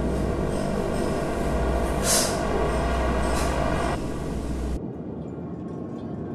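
Dense rumbling drone of film sound design, with a low hum and steady ringing tones layered over noise, cutting off sharply nearly five seconds in to a quieter hiss.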